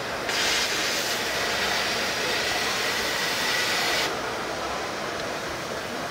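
Plasma cutting torch cutting steel plate: a steady hiss with a faint whistle, which comes up a moment in and eases off about four seconds in.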